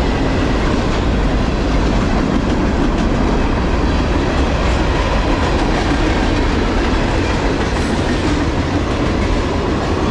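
Freight cars of a long mixed freight train rolling past: a steady, even rumble and clatter of steel wheels on the rails.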